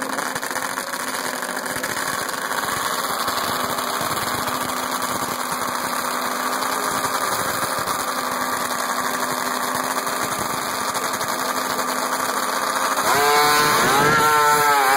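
Racing snowmobile engines running at the drag-race start line, then about two seconds before the end revving hard and launching, the loudest part, with the pitch sweeping up sharply.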